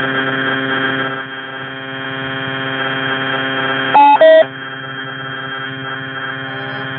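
A loud, steady electronic drone holding one pitch with many overtones. About four seconds in it is cut through by two short, louder beeps, the second lower than the first.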